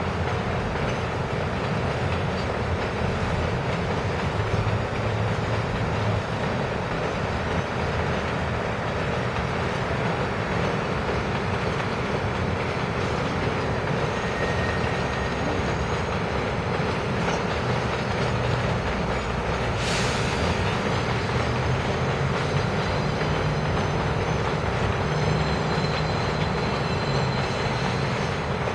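R62A subway train rolling past in a rail yard: a steady rumble of the cars and wheels on the track. There is a single sharp clank about twenty seconds in.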